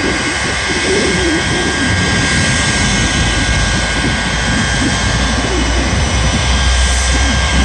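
Shockwave jet truck's three jet engines running on the starting line: a steady high turbine whine over a deep rumble that grows louder in the last couple of seconds.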